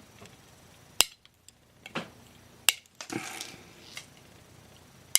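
Small wire cutters snipping metal component leads: four sharp snips, the last three a second or more apart, with the clipped bits flying off.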